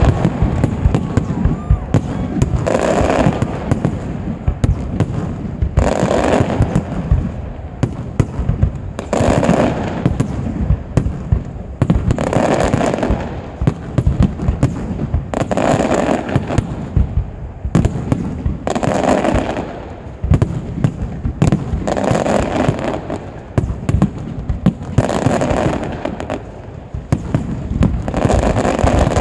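Professional aerial fireworks display: a dense, unbroken barrage of shells bursting with sharp bangs and crackle, swelling louder about every three seconds.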